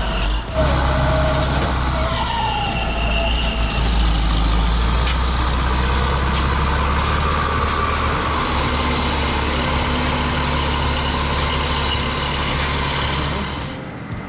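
Heavy diesel engine of a forestry skidder running steadily, with whining tones that glide downward in the first few seconds and a thin steady whine later on. The sound drops away just before the end.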